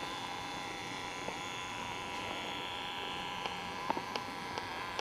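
Steady mechanical hum of room tone with a few faint steady tones in it, and a handful of faint clicks in the second half.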